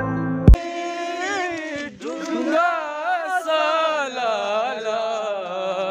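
A hip hop track cuts off about half a second in. Then a male voice sings a slow melody with little or no accompaniment, holding long notes that waver and bend in pitch.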